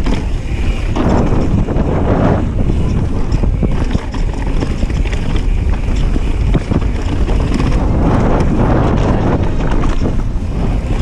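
Wind buffeting an action-camera microphone on a mountain bike descending a rough dirt trail, with the tyres rolling over the ground and the bike rattling on bumps. The rushing noise swells louder about a second in and again about eight seconds in.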